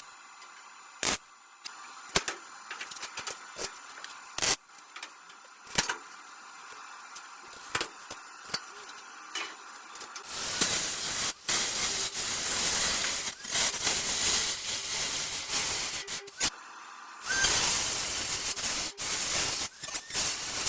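A few light knocks and clicks, then an electric welder crackling on car body steel in two runs of several seconds each, with a short break about 17 seconds in.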